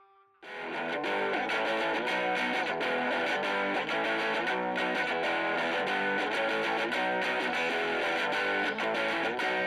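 Music led by an electric guitar playing a repeating riff with effects, starting about half a second in after a brief silence.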